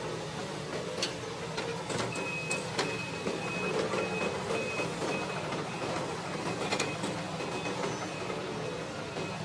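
Excavator engine running, with its high-pitched travel alarm beeping rapidly and evenly from about two seconds in, which signals the machine moving on its tracks. A few short clanks come from the machine.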